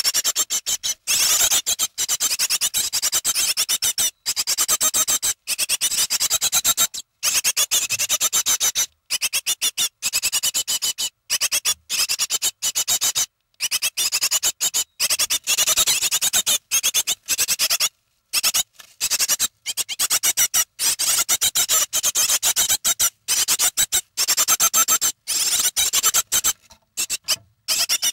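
Bird nestlings calling: a rapid, harsh, high-pitched chatter in long runs broken by short pauses.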